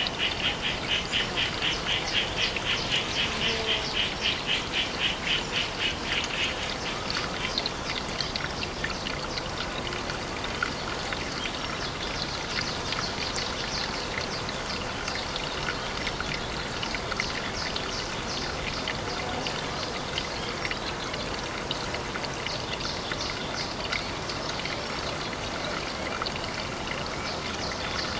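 Water trickling and pattering at a pond, with a rapid, even, pulsing chatter for about the first six seconds that gives way to scattered fine ticks and drips.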